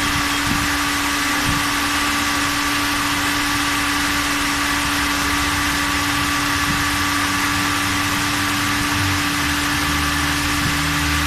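Toyota Etios electric radiator cooling fan running steadily with a constant whirring hum over the idling engine. The fan stays on all the time because air is left in the cooling system, which was not bled after service.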